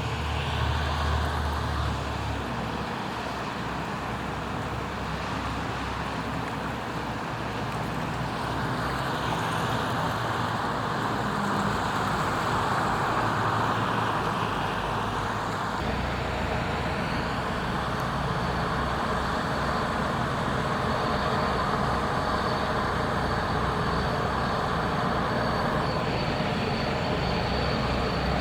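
Steady engine noise over a wash of noise, with the low hum changing pitch twice.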